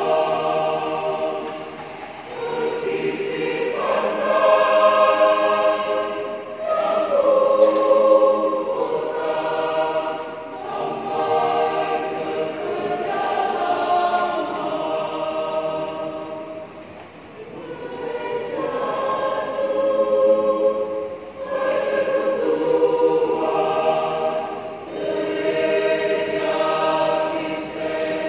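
Choir singing in several voice parts, held notes sung in phrases with short breaths between them and a softer passage about two-thirds of the way in.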